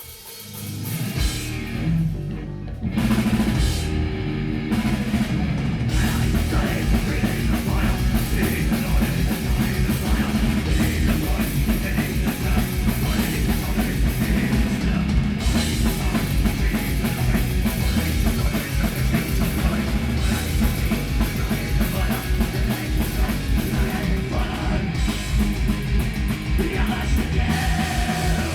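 Live metal band playing loud: distorted electric guitars, bass and fast drumming. The song starts up at the beginning, and the full band comes in about three seconds in.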